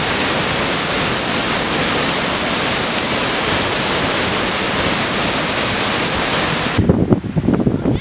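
Large waterfall in full flow, pouring into a rock gorge: a loud, steady rush of falling water. It cuts off suddenly about seven seconds in, giving way to quieter, gusty low sounds.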